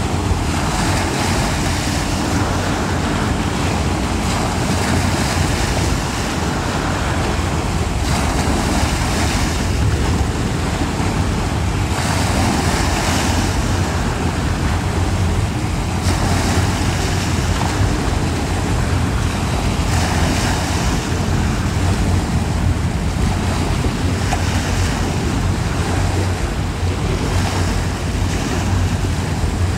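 Wind buffeting the microphone over steady water and wave noise, with a constant low rumble underneath and no sharp events.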